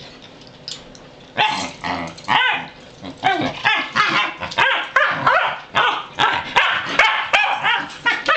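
Pembroke Welsh Corgi barking and yipping excitedly in a quick run of calls, about two a second, starting about a second and a half in, as it is leashed up to go outside.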